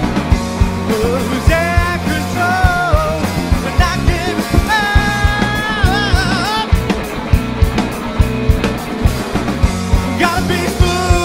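Rock band playing live: a man singing over electric guitars, bass guitar and a drum kit, with two long sung phrases early on and another starting near the end.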